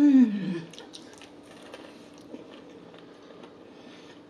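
A short hummed "mmm" right at the start, the loudest sound, rising then falling in pitch, followed by close-up crunching and chewing of a breaded spicy fried chicken tender, with small crackles and clicks through the rest.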